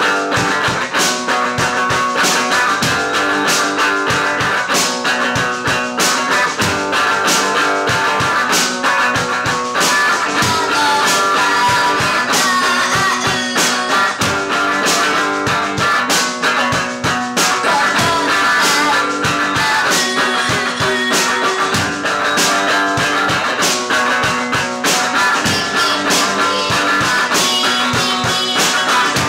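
Rock music played on electric guitar with a band, loud and steady throughout.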